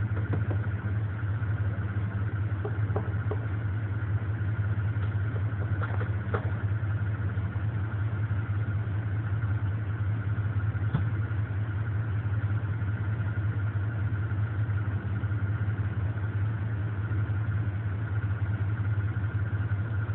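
An engine idling steadily, with a low, even drone throughout.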